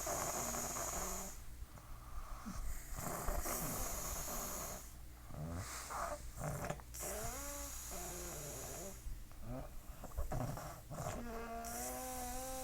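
Snoring: a string of noisy, rasping breaths every second or two. Wavering pitched tones come in about halfway through, and a held tone of about two seconds comes near the end.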